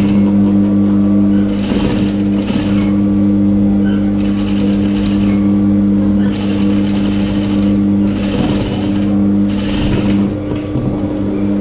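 Industrial sewing machine: its motor hums steadily while the needle stitches in several short runs of about a second each, as the fabric is fed through in stages.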